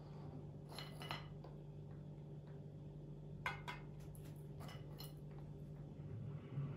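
Faint, scattered taps and clicks as milk-soaked baby biscuits are set down one by one in a glass baking dish, over a low steady hum.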